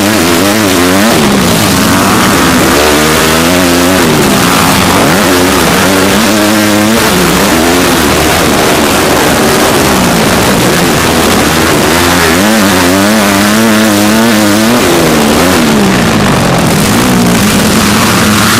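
Motocross bike engine heard from on the bike, revving up and down again and again as the rider accelerates, shifts and backs off through the track's straights and corners, over a constant rushing noise.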